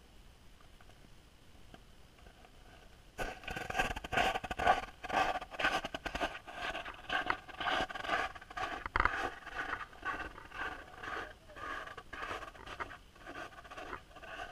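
Near silence, then about three seconds in a rapid, irregular scraping and scratching starts and keeps going.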